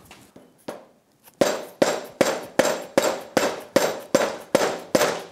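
Hammer blows on a UTV CV axle, driving the CV joint onto the splined half shaft over its snap ring. After two light taps comes a steady run of about eleven sharp metallic strikes, roughly two and a half a second, each ringing briefly.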